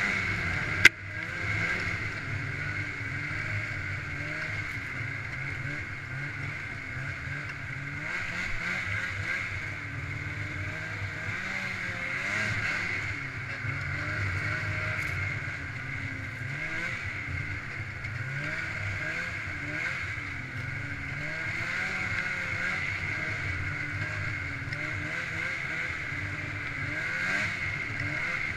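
Snowmobile engine running under way on a trail, its pitch rising and falling with the throttle, with a steady high whine over it. A single sharp knock less than a second in.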